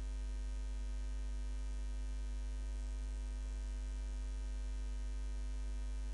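Steady electrical mains hum in the recording: a constant low hum with a row of fainter, higher steady tones above it, unchanging throughout.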